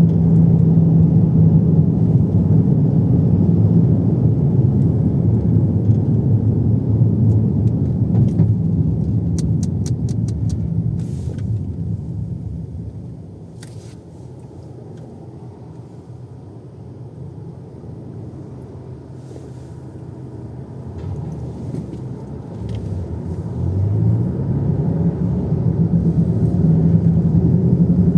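Car cabin noise while driving: a steady low engine and road rumble that fades as the car slows to a near-stop about halfway through, then rises again as it pulls away with the engine pitch climbing near the end.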